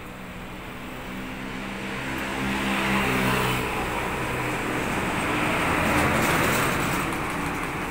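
A motor vehicle passing on the street: engine hum and road noise swell to a peak about three seconds in, ease slightly, and rise again around six seconds before fading.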